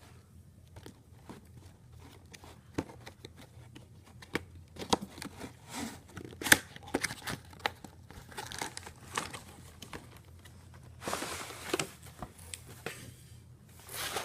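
Packaging of a coloring book kit being opened by hand: crinkling and tearing with scattered clicks of handling. A denser stretch of crinkling comes about eleven seconds in.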